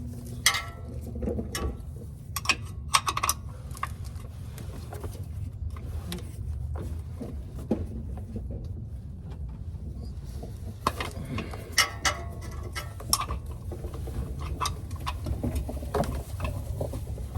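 A wrench clicking and knocking against metal in scattered bursts while a very tight oil filter is worked loose under a car, over a low steady rumble.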